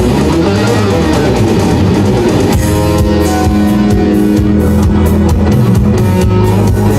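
Live rock guitar instrumental: electric guitar lead over a drum kit. A fast run of notes gives way to held notes about two and a half seconds in.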